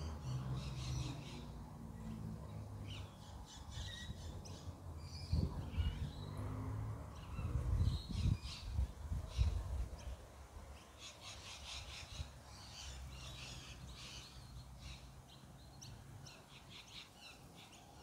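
Birds calling in short bursts of high chirps and chatter, thickest in the second half, over a low rumble with a few louder bumps in the first half.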